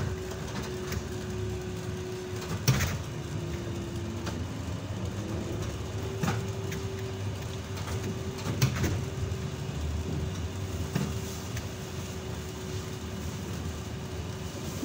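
Ride inside a ZiU-682G trolleybus on the move: a steady rumble of the body over the road with a steady whine whose pitch dips and climbs back a few seconds in. Several sharp knocks and rattles come through it.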